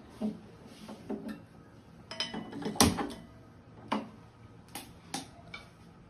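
Gas stove burner being lit: a handheld spark lighter and the burner knob clicking several times at irregular intervals, with one louder knock a little under three seconds in.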